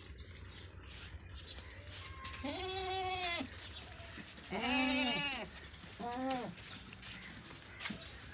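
Goats bleating: three calls, each rising then falling in pitch, the second one loudest.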